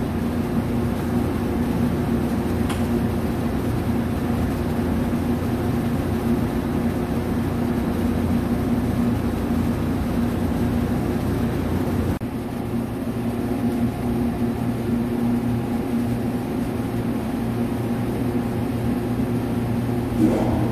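Steady hum of a powered-up CNC lathe, with a faint click about three seconds in.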